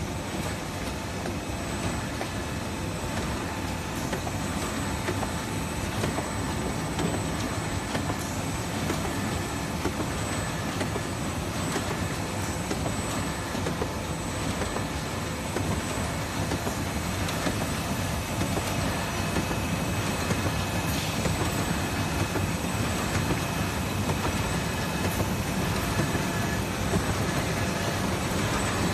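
Automatic corrugated-box folder gluer running steadily, feeding and folding cardboard boxes: an even mechanical running noise with a few faint steady tones and occasional light ticks.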